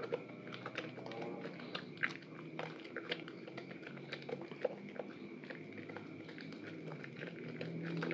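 Soaked, softened bar of soap squeezed and rubbed between wet hands in a basin of lather: irregular wet squelching and crackling with many small clicks, over a faint steady hum.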